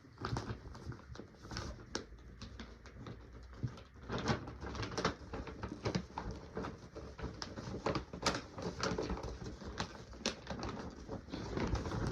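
Paper gift bag being handled and fixed by hand: irregular rustling with small taps and clicks throughout.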